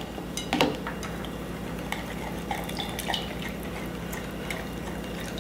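A whisk lightly stirring a dipping sauce in a bowl by hand, with scattered soft clinks and scrapes against the bowl over a low steady hum.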